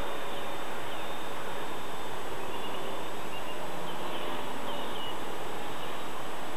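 Blade 400 electric RC helicopter flying at a distance: its rotor and motor whine is faint and wavers in pitch under a steady rushing noise.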